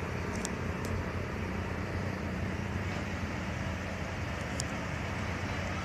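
Steady low hum of a running vehicle engine with road-traffic noise and a few faint ticks; no horn sounds.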